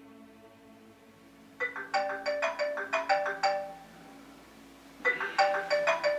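Phone ringtone melody of quick chiming notes, sounding in two runs of the same phrase: the first about a second and a half in, the second about five seconds in. Soft sustained music tones are heard before the first run.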